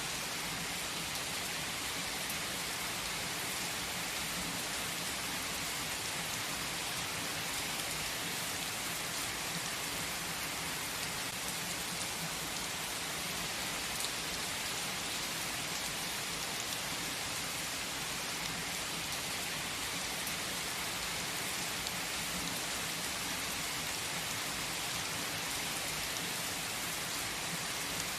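Steady rainstorm in a rainforest: rain falling in an even, unbroken hiss, with scattered close drops standing out.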